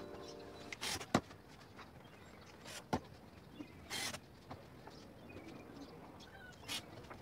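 Background music fades out in the first second. It is followed by scattered knocks, clicks and short scraping noises as a cordless drill and a plywood box are handled, with a slightly longer noisy burst about four seconds in.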